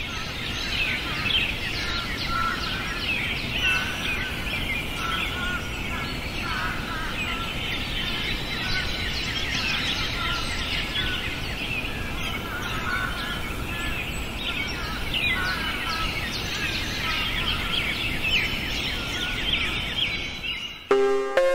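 A chorus of many small birds chirping and singing over a low steady hiss, dense and continuous. Just before the end, music with clear pitched notes cuts in and is louder than the birdsong.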